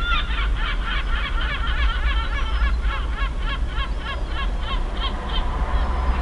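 A bird calling in a rapid series of short, sharp notes, about four a second, fading out about five seconds in, over a steady low rumble.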